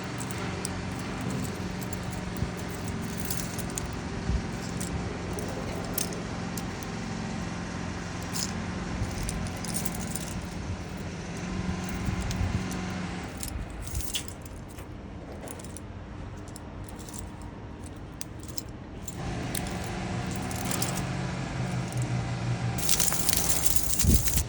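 Keys and titanium key rings clinking and jangling as they are handled, in many small scattered clicks. A steady low hum runs underneath, dropping away for a few seconds past the middle.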